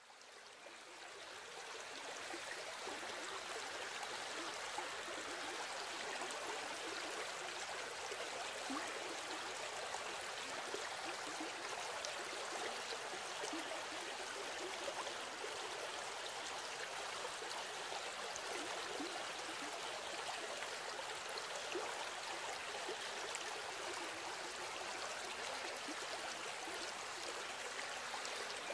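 Steady rushing sound of running water, like a stream, fading in over the first couple of seconds and then holding even.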